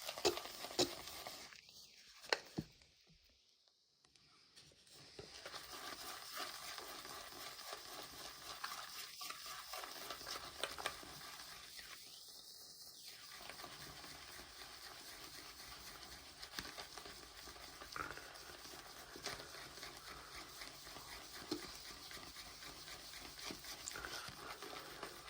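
Shaving brush swirling wet soap lather around a ridged 3D-printed bowl: a faint, steady wet swishing with small clicks. It drops away briefly about three seconds in.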